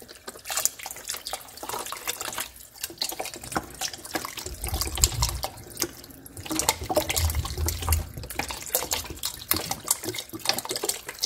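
Vegetable stock poured from a carton into a pot of chunky tomato base, splashing unevenly as it runs in, with a few dull low bumps around the middle.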